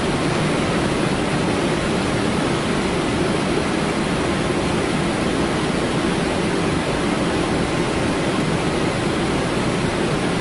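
Steady rushing noise inside a Boeing 777 cockpit on final approach: airflow over the flight deck mixed with engine noise, level and unbroken.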